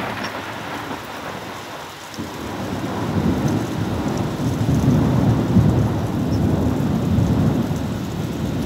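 Rain and muddy floodwater rushing across a road, a continuous noisy roar, with a deeper rumble that swells from about two seconds in and holds.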